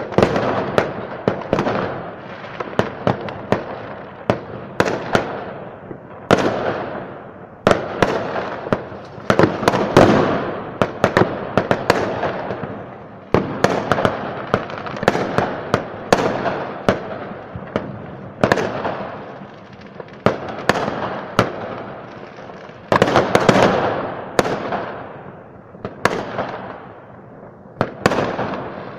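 Many fireworks and firecrackers going off around a city: a dense, unbroken run of overlapping bangs and crackles, each bang trailing off in a long echo.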